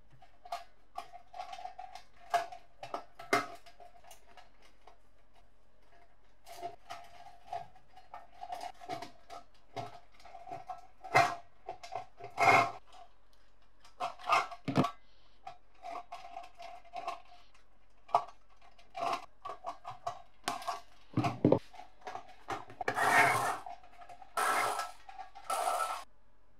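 Irregular clicks, taps and knocks of parts being handled and fitted by hand, with a few longer rasping scrapes near the end.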